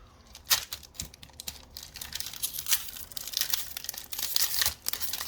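Foil wrapper of a Pokémon trading-card booster pack being torn open and handled, with irregular crinkling and crackling.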